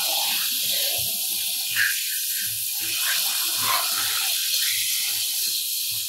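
Garden hose spray nozzle jetting water onto plastic toy cars: a steady hiss of spray, with soft low thuds under it.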